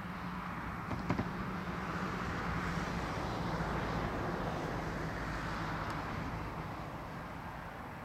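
A passing vehicle: a rushing noise that swells to its loudest around the middle and fades again, over a low steady hum, with a short click about a second in.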